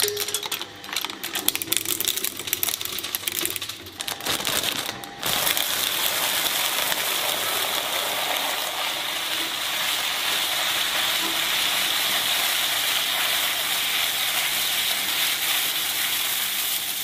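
Twin-shaft shredder's cutter discs cracking and snapping a toy cockroach in rapid, irregular sharp cracks. About five seconds in the sound cuts to a dense, steady crunching hiss as the blades grind through a heap of puffed corn snacks.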